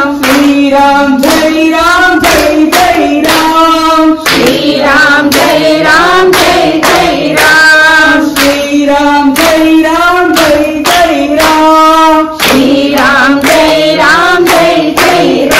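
Bhajan singing with hand claps keeping a steady beat, about two claps a second.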